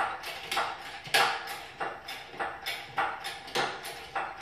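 Hydraulic engine hoist being pumped by hand to lift an engine, each stroke of the pump handle giving a sharp metallic clank with a short ring, about one and a half strokes a second.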